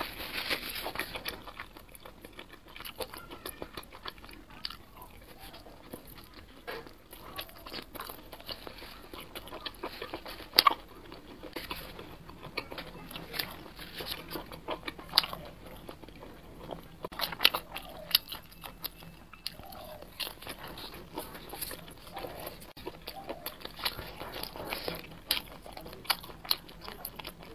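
Close-miked biting and chewing of grilled barbecue skewers, with irregular crunches; the sharpest crunches come about ten and seventeen seconds in.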